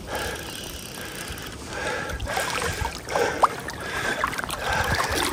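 River current rushing and splashing, stirred by an angler wading over slippery rocks.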